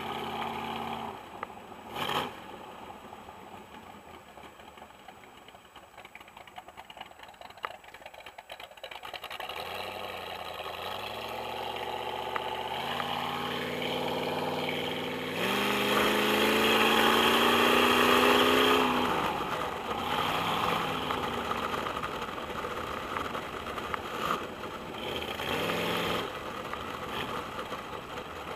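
Boss Hoss motorcycle's 8.2-litre V8 engine under way, heard from the rider's seat. Between about ten and nineteen seconds in, the revs climb twice and the engine is loudest at the end of the second climb. Then the throttle closes and it settles back to a steadier run.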